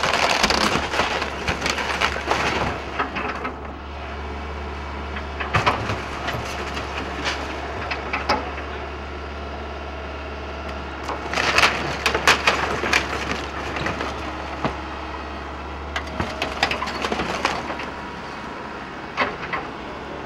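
Excavator demolishing a building: repeated bursts of cracking and crunching as the structure is broken apart. The loudest bursts come at the start and about halfway through, over a steady low engine hum.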